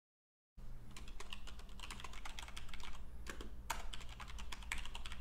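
Typing on a computer keyboard: a quick, irregular run of key clicks over a faint steady low hum, starting abruptly about half a second in.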